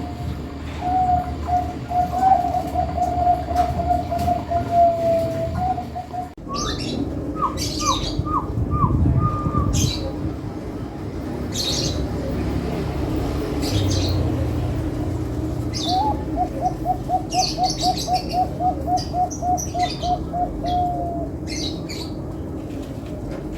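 Caged birds calling and singing: a low, fast, evenly pulsed trill that runs for several seconds, comes again later, and is mixed with short high chirps.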